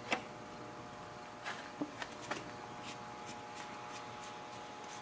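A few faint, short clicks and light taps of small parts and tools being handled, over a steady faint hum.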